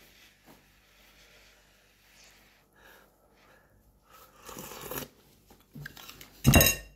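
Eating hot chicken soup with a metal spoon: quiet mouth sounds, then a half-second slurp from the spoon about four and a half seconds in. Near the end comes a short, louder clatter of the metal spoon against the ceramic soup bowl.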